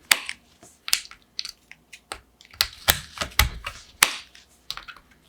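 Gateron Beer tactile switches being pulled one at a time out of a Keychron Q1 Pro's hot-swap sockets: irregular sharp plastic clicks and snaps, sometimes a second apart, sometimes in quick runs of two or three.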